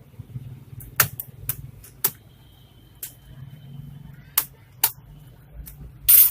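Sharp, scattered clicks and taps of HP Pavilion G4 laptop parts being handled and worked apart, about eight irregular clicks, with a short, louder clatter near the end.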